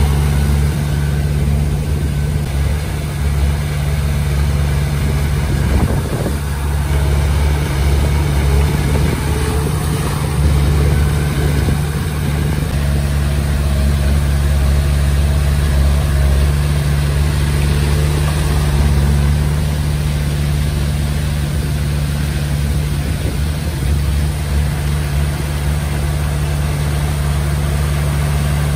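Komatsu D20P bulldozer's diesel engine running steadily at one pitch, its low drone easing briefly a couple of times.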